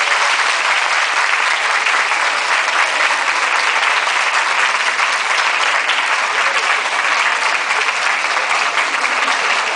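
Audience applauding: steady, dense clapping that holds without a break.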